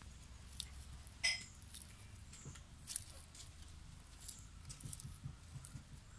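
Faint, scattered soft clicks and taps of a large kitchen knife slicing banana held in the hand, the pieces dropping onto a plate, with one sharper click about a second in.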